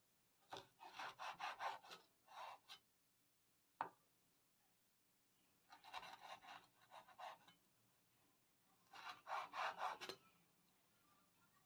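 Cleaver slicing red chilies lengthwise on a wooden cutting board: three runs of quick back-and-forth sawing strokes, with a single sharp knock between the first two.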